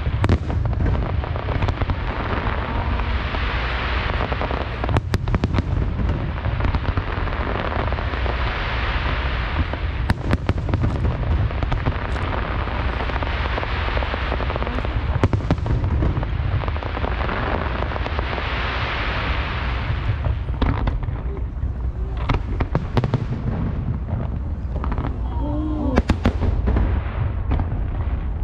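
Aerial fireworks display: shells bursting in a continuous low rumble, with sharp bangs standing out several times, most densely in the last third.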